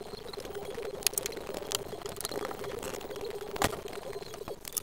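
Cloth rubbing and wiping on a wagon wheel's metal hub, with a few sharp clicks and knocks, over a steady hum.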